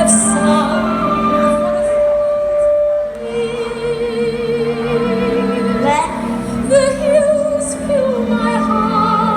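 Music with singing: long held vocal notes, some with a wavering vibrato, over steady instrumental accompaniment.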